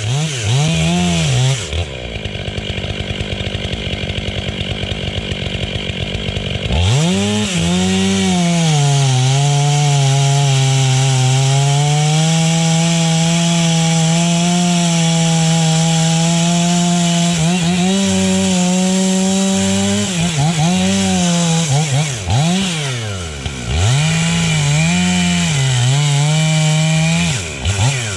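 Two-stroke chainsaw revving, idling briefly, then held at full throttle through a long cut in a tree trunk, its pitch sagging under load, before the throttle is blipped up and down several times near the end.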